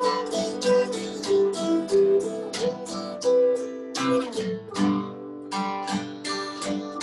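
Martin cutaway acoustic guitar strummed in a steady rhythm while a blue Fender Stratocaster electric guitar plays lead lines over it, with a falling phrase about four and a half seconds in.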